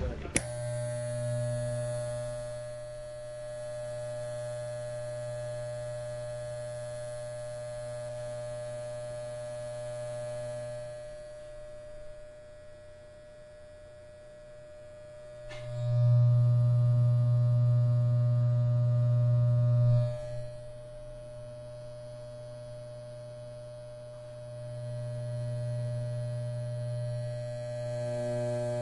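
Electric hair clippers buzzing with a steady hum that swells and fades. It is loudest for about four seconds just past the middle, then drops back suddenly.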